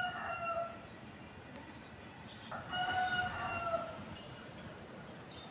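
Rooster crowing twice: the end of one crow at the start, then a full crow about two and a half seconds in that holds one pitch and drops away at the end.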